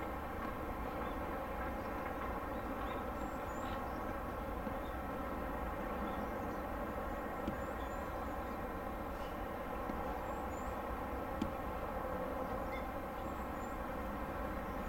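Steady hum of a large cruise ship's machinery, many even tones held without change, with short high chirps now and then.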